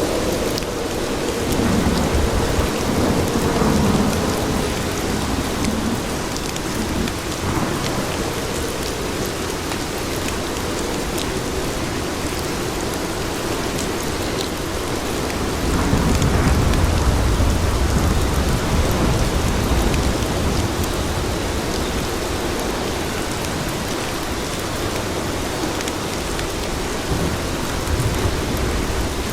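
Steady rain falling on pavement, with low rumbles of thunder swelling twice, the second and stronger about sixteen seconds in.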